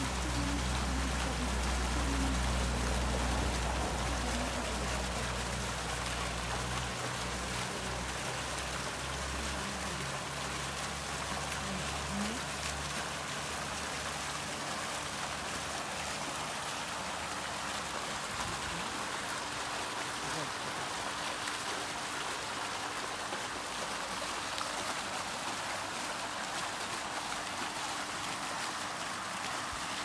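Small fountain jets splashing steadily into a shallow pool, a continuous rain-like patter of falling water. A low rumble sits underneath for the first several seconds, then fades out.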